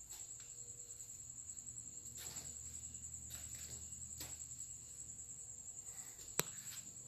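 A cricket chirping steadily in a fast, high-pitched pulsing trill. A few faint knocks are heard, and a single sharp click comes near the end.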